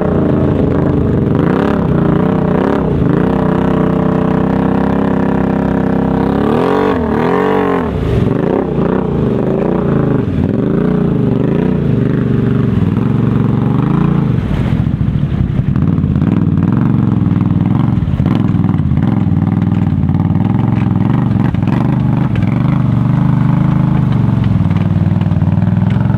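ATV engine revving hard under load in a mud hole, its pitch swinging up and down repeatedly for the first several seconds, then running steadier with a few dips.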